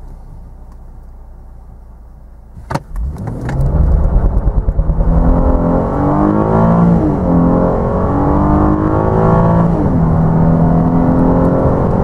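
Mercedes-Benz CLS 350's 3.5-litre V6 petrol engine, heard from inside the cabin, running low and steady, then pulling hard at full throttle after a sharp click about three seconds in. Its note climbs and drops twice as the seven-speed automatic upshifts.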